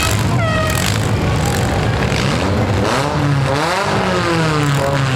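Demolition derby compact cars' engines revving up and down. A tire squeal fades out in the first second.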